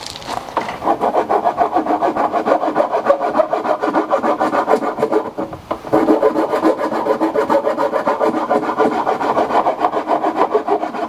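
Hand filing in quick, even back-and-forth rasping strokes, about five a second, with a short pause a little past the middle.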